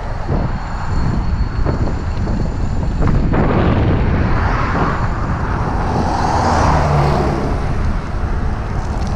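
Wind rumble on the microphone of a moving bike, with road traffic passing close by in the next lane; one vehicle goes by loudest about six to seven seconds in.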